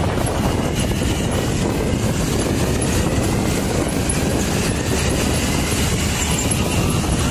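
Steady rumble of a moving vehicle at road speed, heard from inside it: engine, tyre and wind noise running evenly.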